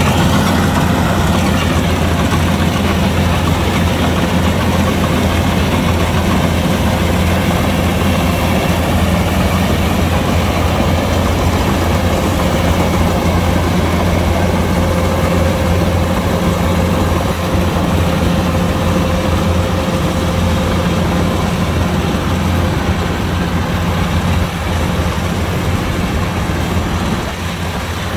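Kubota DC-105X combine harvester's diesel engine running steadily with a low drone, a little quieter near the end.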